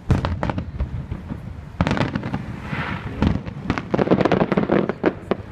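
Aerial fireworks bursting: a loud bang at the start, then a rapid run of sharp bangs and crackles that thickens from about two seconds in.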